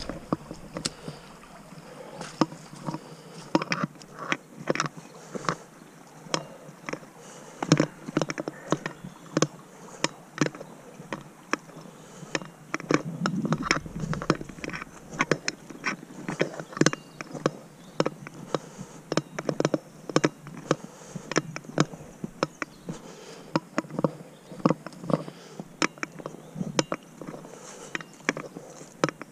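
Footsteps crunching on dry leaf litter and twigs along a woodland path, at a walking pace of about two steps a second.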